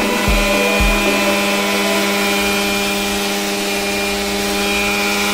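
Indian mixer grinder (mixie) running steadily at full speed, grinding soaked grated coconut, cashews and spices with water into a wet paste: an even motor hum with several steady tones over a hiss.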